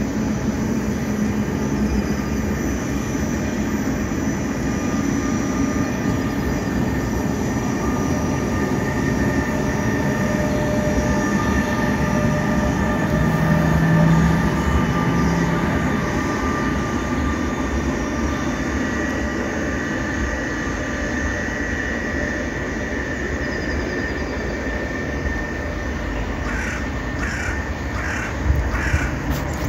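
Koleje Mazowieckie double-deck train hauled by an EU47 electric locomotive moving past: a steady rumble of wheels on rail with several high whining tones. It is loudest about halfway through, when a low hum comes in as the locomotive passes, then it eases off.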